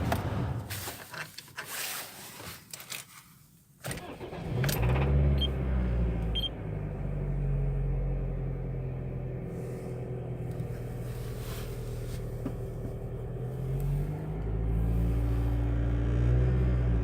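Toyota 2ZZ-GE 1.8-litre four-cylinder engine starting after a few clicks about four seconds in, then idling and revving up briefly near the end. It runs with a dull, deep knock from the engine: the bearing shells have spun.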